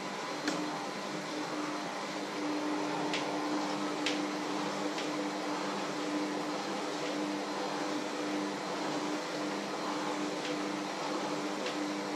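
Electric hand mixer running steadily with its beaters in a bowl, a constant motor hum, with a few sharp clicks over it.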